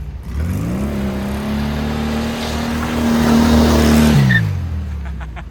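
Sports car engine revving up, holding high revs for about three seconds and loudest near the end of that, then dropping off about four seconds in.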